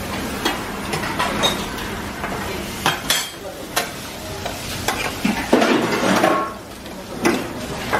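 Crab pieces sizzling in a steel frying pan of masala over a gas flame while a metal spoon stirs them, scraping and clicking against the pan. The sizzling swells for a moment a little past the middle.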